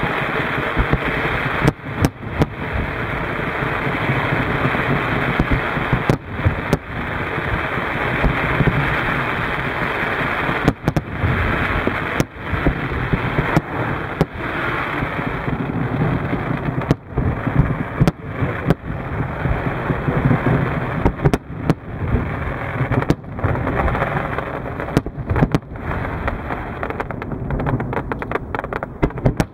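Fireworks display: a continuous wash of noise from launches and bursts, cut by sharp bangs every second or two, turning into a rapid string of crackling reports near the end.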